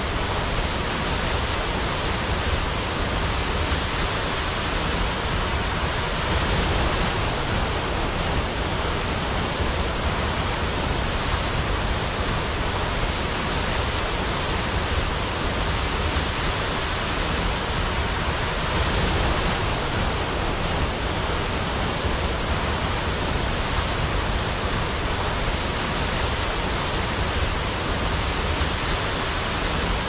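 Waterfall: falling water in a steady, even rush.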